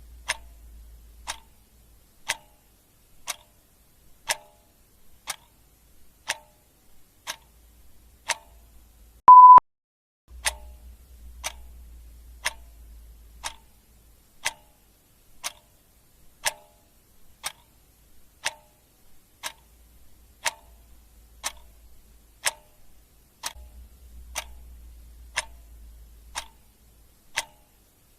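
Clock-ticking sound effect, one tick about every second. A single short, loud beep sounds about nine seconds in.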